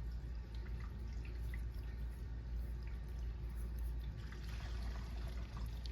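Faint, scattered light clicks and ticks from small metal tools and parts as a Master Lock 1145 dimple padlock is taken apart, its grub screws being removed, over a steady low hum.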